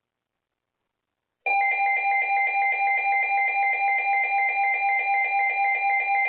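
Emergency Alert System attention tone: a loud, steady electronic alert tone that starts abruptly about a second and a half in and holds, with a slight regular pulsing.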